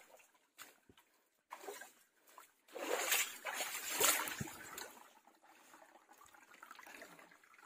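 Shallow rocky stream trickling, with footsteps splashing and scuffing through the water and over the stones, loudest about three to four seconds in.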